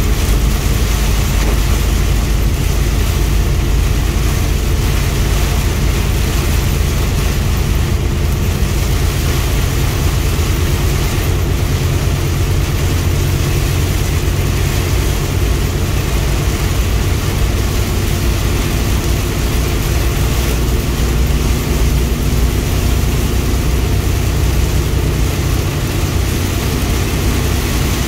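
Steady, loud drone inside a truck cab driving through heavy rain: engine and tyre noise on the wet road, with rain hitting the glass and body.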